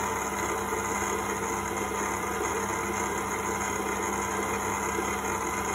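Stand mixer running steadily at low speed with a steady hum, its wire whisk beating sifted flour into sponge-cake batter made from whipped egg whites and yolks.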